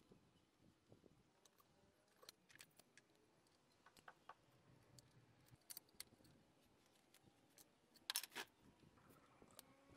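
Faint scattered clicks and small metallic taps of hand tools being worked and handled, with a louder cluster of sharp clicks about eight seconds in.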